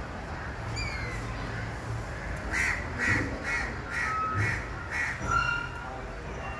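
A bird calling in a quick series of short, harsh calls, about two or three a second, starting about two and a half seconds in.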